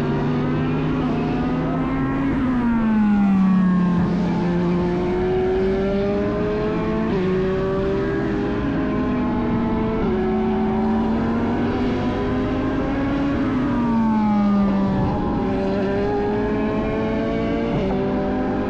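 Race cars at full throttle passing by. The engine pitch swoops down as cars go past, about three seconds in and again near fourteen seconds, and in between cars accelerate through upshifts, the pitch climbing and dropping back at each gear change.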